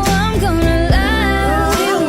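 Pop song with a sung lead vocal over bass and drums.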